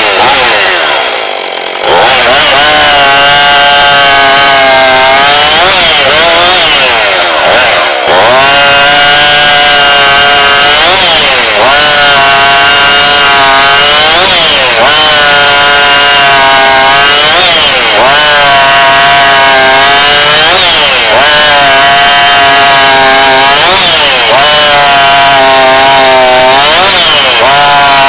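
Husqvarna 450e two-stroke chainsaw running loud at high revs. Its pitch dips sharply and recovers about every three seconds, after a brief drop in level about a second in.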